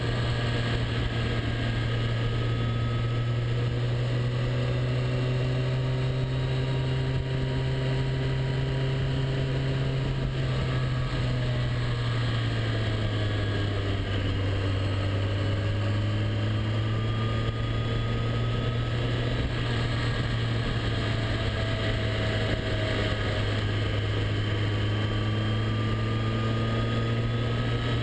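Motorcycle engine running steadily at road speed under a constant rush of wind. The engine note drops slightly about halfway through, then gradually rises again.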